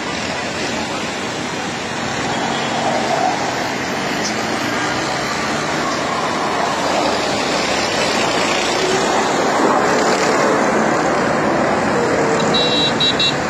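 Jet engines of a formation of aerobatic display jets making a steady roar overhead, growing slightly louder, with faint gliding whines. A brief high-pitched pulsing beep sounds near the end.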